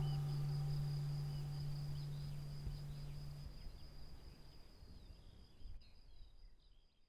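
Closing fade of a meditative drone track: a low held note stops about halfway through, leaving a faint steady high-pitched trill with small short chirps over it, all fading out near the end.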